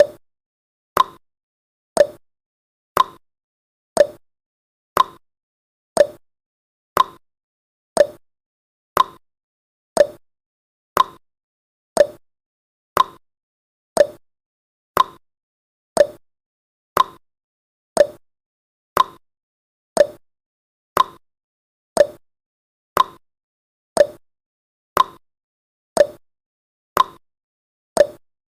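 Countdown timer tick sound effect: a short, sharp click with a brief pitched tone, repeating evenly once every second.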